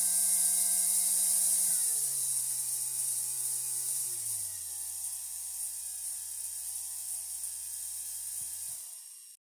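A cordless power tool's DC motor runs under PWM trigger speed control with a high hiss, its speed stepping down twice. It then stops suddenly near the end.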